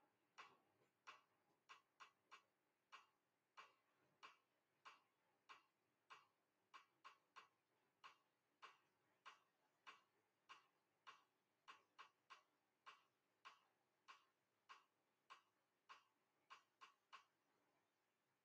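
Near silence with faint, sharp clicks, roughly two a second at uneven spacing, stopping near the end.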